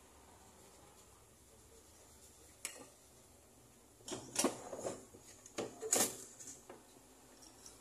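A single sharp click, then a couple of seconds of metal hand tools clattering and clinking as they are picked up and set down among other tools on a workbench.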